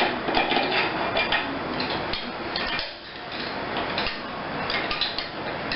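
Small metal clicks and clinks, many in quick succession, as the rack and ram of a Blademaster TSM811T riveter are fitted back together.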